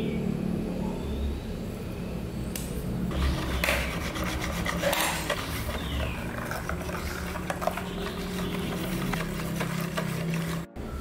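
Metal balloon whisk beating thick caramel cake batter in a plastic bowl: quick, uneven scraping and slapping strokes that start about two and a half seconds in, as the leavening is mixed through.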